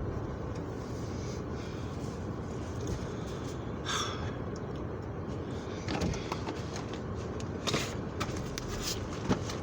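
Subaru Outback running steadily while stuck in deep snow, with a few short knocks scattered through it.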